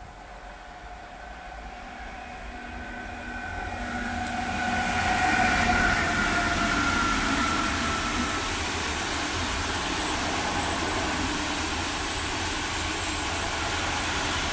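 DB Class 189 electric locomotive approaching and passing with a whine that falls slightly in pitch, growing louder to a peak about five or six seconds in. Then a long train of loaded freight hopper wagons rolls past with steady wheel-on-rail noise.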